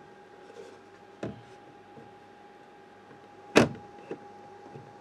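A 3D-printed PLA purge bin knocking against the sheet-metal back panel of a 3D printer as its hooks are fitted into the panel's slots: a faint tap about a second in, then one sharp knock past the middle, over a steady hum.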